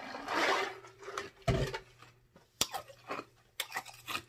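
Drinking from a large glass jar: a noisy sip near the start, a low thump about a second and a half in, then a string of short wet lip smacks and mouth clicks.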